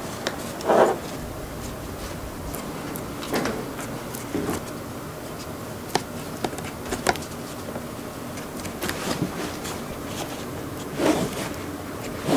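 Pliers clicking and tapping against a metal kiss-lock purse frame as its ends are crimped onto the fabric bag, with scattered sharp clicks and a few louder knocks, one about a second in and one near the end.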